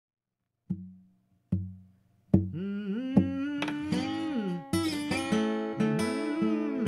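Acoustic guitar played with a metal slide: two single plucked notes about a second apart, then from about two seconds in a continuous passage with notes gliding up and down in pitch.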